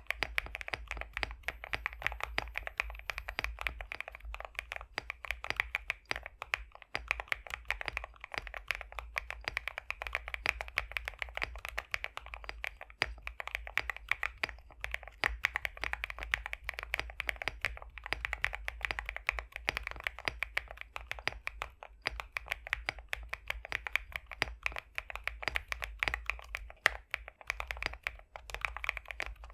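Continuous fast typing on a High65 v2 custom mechanical keyboard fitted with pre-lubed BSUN X linear switches: a dense, unbroken run of keystroke clacks with a thocky, creamy tone.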